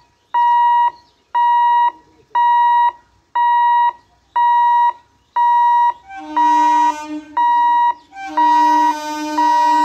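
Level crossing warning hooter beeping at about one beep a second, each beep about half a second long on a single high pitch: the alarm that sounds while the gates are closed for an approaching train. About six seconds in, a second, lower tone joins and keeps sounding between the beeps.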